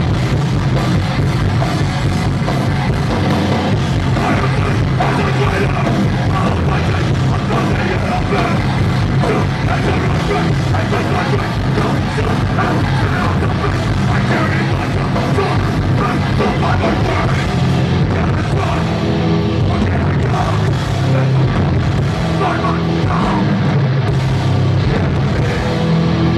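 Hardcore punk band playing live and loud: distorted electric guitars, bass and drums, heard from within the crowd in a large hall.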